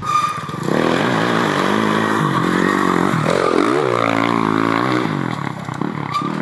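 Dirt bike engine running at high revs close by. About three and a half seconds in, the revs drop sharply, then climb back up.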